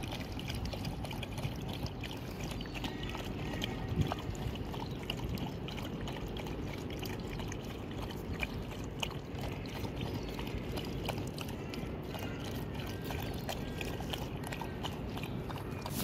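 Several dogs lapping water from a plastic tub: a steady run of small wet clicks and splashes.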